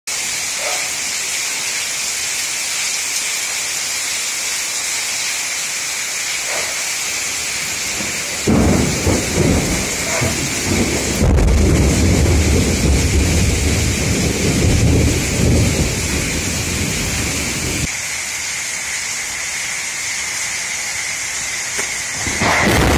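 Heavy rain falling steadily, with a long rumble of thunder that starts suddenly about a third of the way in, swells and lasts about ten seconds. Near the end, a fresh loud thunderclap breaks right after a lightning flash.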